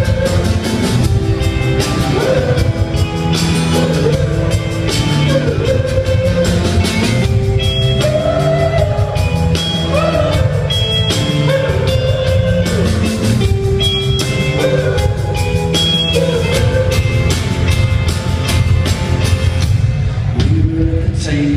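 Rock band playing live through an arena PA, with drums, guitars and a sung melody, heard from within the crowd.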